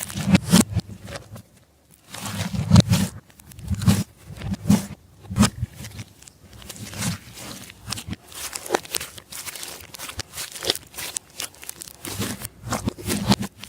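Slime being kneaded and stretched by hand, with irregular sticky pops and crackles throughout.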